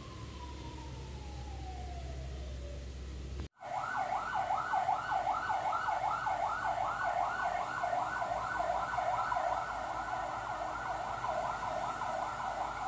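Emergency vehicle siren. First a single tone falls slowly over engine rumble; then, after an abrupt break, a rapid yelp wail sweeps up and down about three to four times a second.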